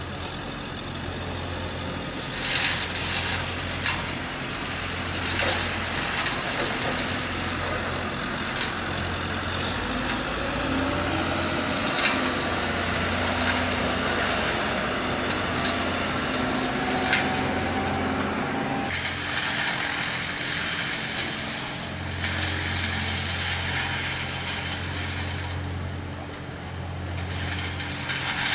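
Heavy diesel engine running with a steady low hum and a few sharp knocks. From about ten seconds in its pitch climbs slowly, then breaks off about two-thirds of the way through.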